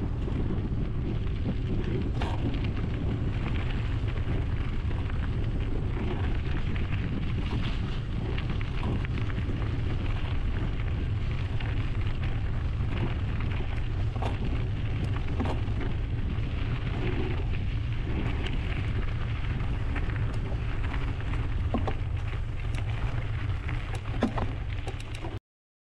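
Wind buffeting the microphone of a GoPro on a moving mountain bike, with a steady low rumble and frequent small crackles and clicks from the tyres on the trail and the bike rattling. Cuts off suddenly near the end.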